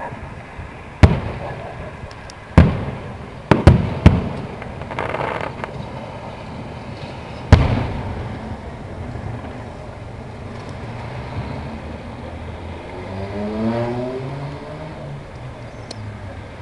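Aerial fireworks shells bursting overhead: six sharp bangs in the first eight seconds, three of them close together around three and a half to four seconds in, then a short crackle.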